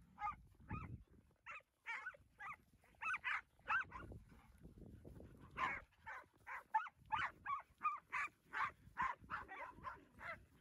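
Ranch dog barking at cattle in short, sharp barks: scattered at first, then a quick steady run of about three barks a second from about five seconds in.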